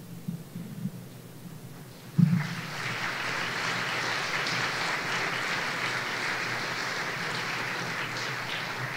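Audience applauding. A few soft knocks come first, then about two seconds in a sharp thump as the clapping starts and goes on steadily.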